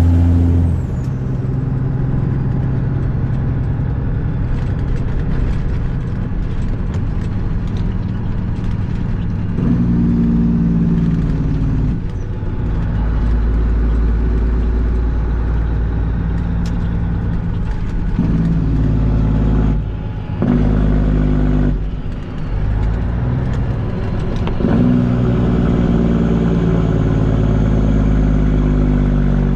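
Semi truck's diesel engine heard from inside the cab on the road, its note stepping up and down several times, with two brief dips in the engine sound about two-thirds of the way through.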